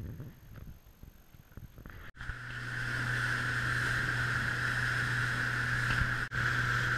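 Outboard motor running steadily at speed on an inflatable boat, with the rush of water and wake, starting suddenly about two seconds in after a few seconds of faint outdoor sound, and briefly cutting out near the end.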